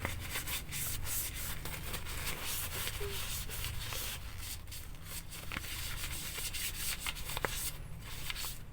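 Dry tissue rubbed back and forth over a phone case in short, irregular wiping strokes, drying it after a wet-tissue clean.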